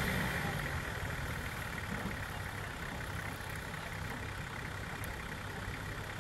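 Off-road 4x4 vehicle's engine idling steadily with a low, even hum.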